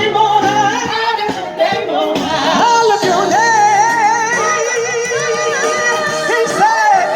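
Music with a singer holding long, wavering sung notes over steady accompaniment.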